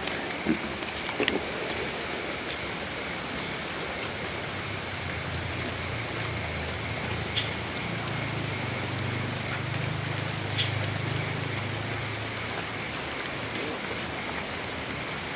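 Night insects, crickets by their sound, chirping in a steady high trill over an even background hiss.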